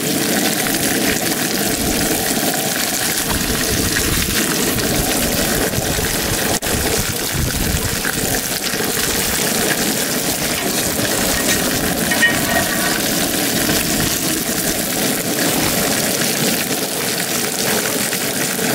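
Shake 'n Bake–coated brook trout fillets sizzling steadily in hot oil in a cast iron skillet.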